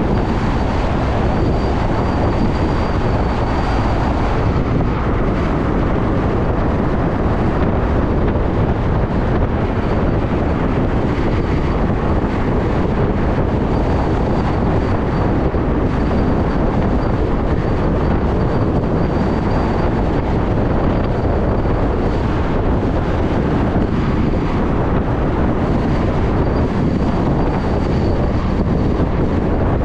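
Steady wind rush buffeting the microphone of a riding camera, mixed with road and traffic noise. A faint high whine comes and goes.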